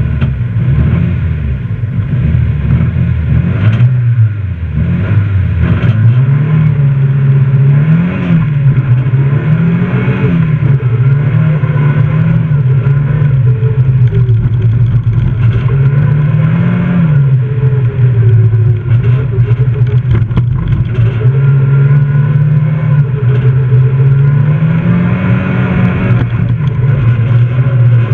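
Fiat rally car's engine heard from inside the cabin, pulling away from the start line and then revving up and down over and over as it changes gear and lifts and accelerates through the stage.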